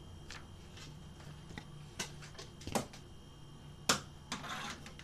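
A few sharp clicks and knocks over a faint steady low hum, the loudest knock about four seconds in, followed by a brief rustle.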